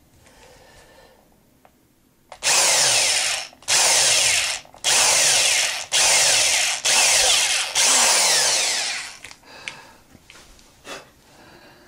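Electric drill boring a hole through a thin guitar top in about six short trigger bursts of about a second each, each falling in pitch. A few light handling clicks come near the end.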